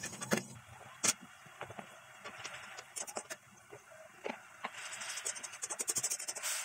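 A spatula scraping and knocking against a wok as a wet spice paste is stirred, then the paste sizzling and spluttering louder from about three-quarters of the way in.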